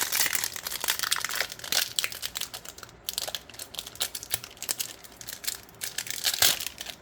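Foil wrapper of a Magic: The Gathering collector booster pack crinkling and tearing as it is ripped open by hand, with a short lull about three seconds in and a loud rip near the end.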